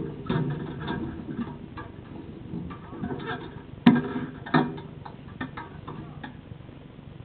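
Handling noise close to the camera: irregular knocks, clicks and rustling as a rider's helmet moves past it, with a sharp knock about four seconds in and a second one just after.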